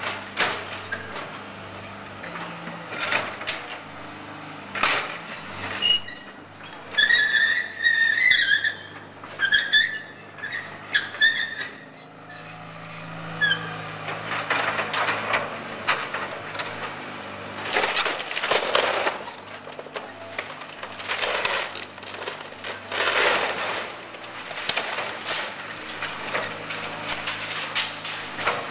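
A Case tracked excavator's diesel engine running steadily as its bucket tears into a wood-frame house, with repeated cracking and crashing of splintering timber and falling debris. A run of high squeals comes about a quarter to a third of the way in.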